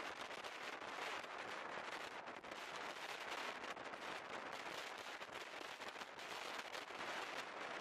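SJ night train moving along the track, heard at a carriage window: a steady rush of noise full of dense, irregular crackling.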